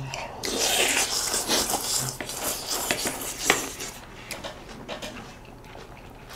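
Noodles slurped in a loud mouthful, then chewing with clicks of utensils on dishes, the sharpest about three and a half seconds in.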